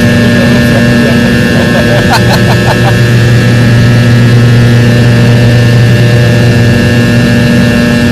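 Aircraft engines droning steadily, heard from inside the passenger cabin, a loud even hum with fixed low tones.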